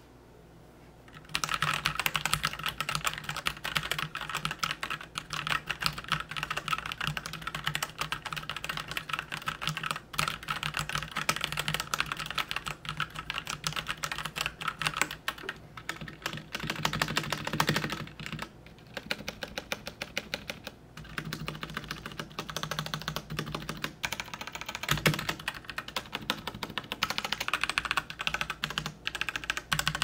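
Typing on a Royal Kludge RK84 mechanical keyboard fitted with its in-house TTC red linear switches: a fast, continuous clatter of keystrokes that starts about a second and a half in and slackens briefly around the middle.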